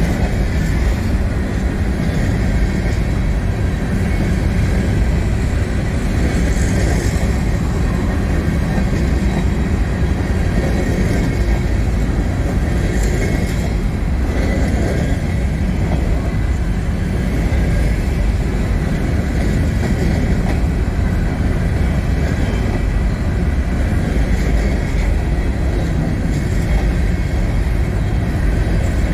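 Freight train of open-top phosphate hopper cars rolling past, the steady rumble of steel wheels on the rails.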